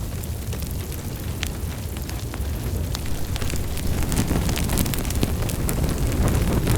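Wood fire burning in a fireplace: a steady low rumble of flames with irregular sharp crackles and pops, which grow busier and a little louder about halfway through.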